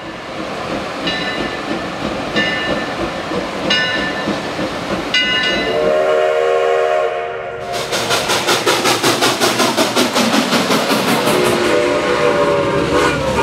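Steam locomotive: its bell rings four times about a second and a half apart, then its chime whistle sounds for about two seconds. Then the exhaust chuffs hard at about four beats a second, with the whistle blowing again near the end.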